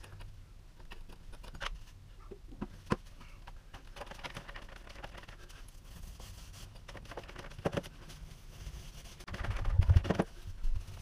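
Painting a textured wall with a roller: scattered knocks and clicks of the roller and paint tray, and stretches of sticky rasping as the roller runs over the wall. The loudest part is a dense rustle with low thuds near the end, as the plastic drop sheet and tray are handled.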